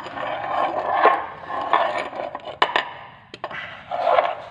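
A metal spanner scraping and clinking against the steel suspension parts as a bolt is worked on. It is a rough scraping with a few sharp clicks past the middle and a stronger scrape near the end.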